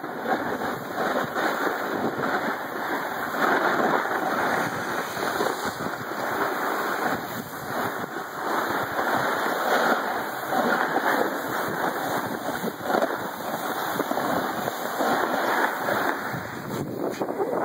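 Continuous rough scraping hiss of edges sliding and carving over hard-packed, chopped-up snow, rising and falling with each turn, with some wind rush on the microphone.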